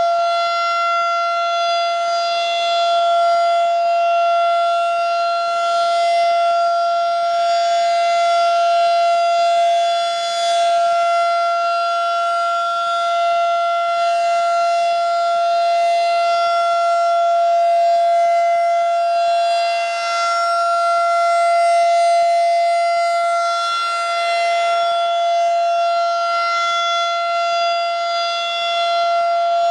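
Federal Signal 2001-SRN tornado siren sounding a steady single-pitch tone during a siren test. Its loudness swells and eases gently every few seconds.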